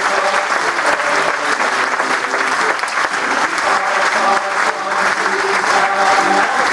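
Theatre audience applauding steadily, with a men's and women's choir and piano carrying on faintly beneath the clapping.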